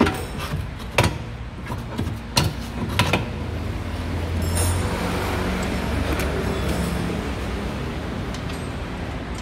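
A few sharp metallic knocks as a new BMW E36 front lower control arm is worked up into place under the car by hand, then a steady low rumble.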